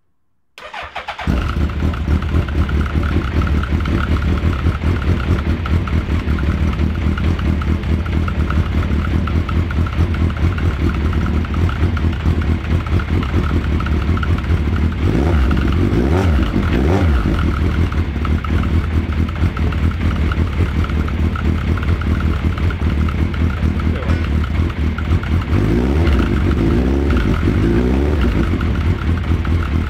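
Suzuki Hayabusa GSX1300R inline-four motorcycle engine cranking briefly and catching about a second in, then idling with throttle blips in the middle and again near the end, through a new stainless 4-into-1 exhaust. The engine sounds weird because of an unplugged O2 sensor port in the link pipe, though the exhaust is not blowing at the headers.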